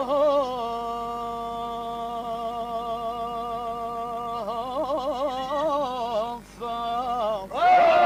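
A man singing unaccompanied in the Lebanese zajal style: he holds one long steady note, then breaks into wavering, ornamented turns about halfway through. After a short break near the end he comes in loudly on a new note that bends up and down in pitch.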